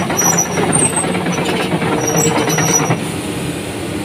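Komatsu PC200-8 excavator's six-cylinder diesel engine running steadily, with short high-pitched squeaks over it. The sound drops a little about three seconds in.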